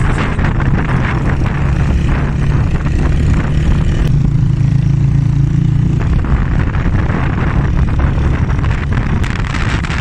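Motorcycle engine running steadily while under way, mixed with wind rushing over the microphone; for a couple of seconds in the middle the wind eases and the engine's low hum stands out more clearly.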